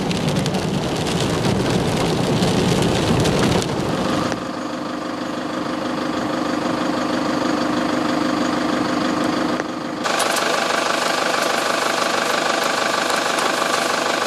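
Car driving on a dirt forest road, rain hitting the windscreen. After about four seconds the sound changes abruptly to a steady engine hum, which after a brief break around ten seconds carries on as an engine idling.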